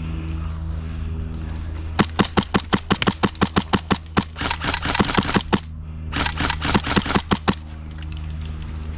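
Airsoft gun firing three rapid strings of shots, about seven sharp cracks a second, over a steady low hum.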